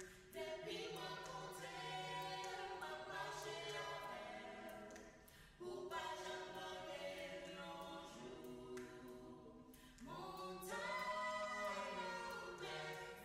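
Quiet choral music: a choir singing long, held chords, in three phrases with short breaks about five and a half and ten seconds in.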